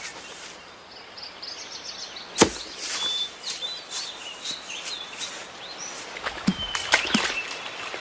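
Outdoor ambience with small birds chirping in short calls over a steady hiss. A sharp knock about two and a half seconds in, and a few smaller clicks near the end.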